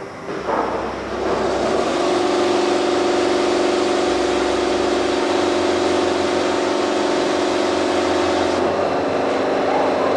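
A machine running steadily: an even mechanical noise with a steady hum, setting in about a second and a half in and shifting slightly near the end.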